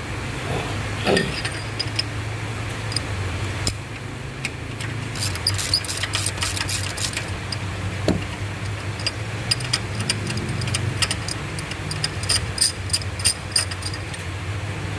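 Metallic clicking and clinking of a ratchet and spark plug socket working on the engine, in runs of quick clicks, over a steady low hum.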